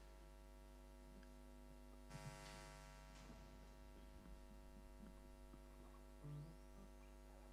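Near silence: a steady electrical hum from the sound system, with a few faint knocks.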